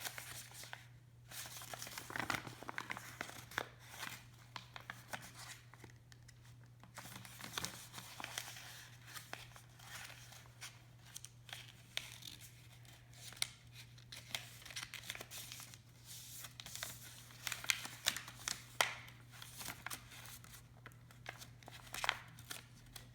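A sheet of paper being folded and creased by hand, with irregular rustling and crinkling as it is handled and pressed flat. A steady low hum runs underneath.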